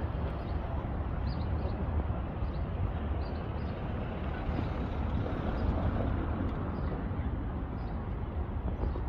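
Steady city street noise: road traffic rumbling.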